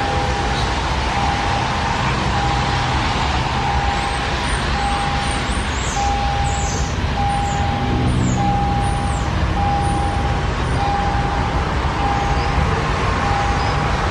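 Amtrak GE Genesis P42DC diesel locomotive drawing its passenger train slowly into the station, engine running under a steady wash of rolling noise. A single-tone beep repeats about once a second throughout.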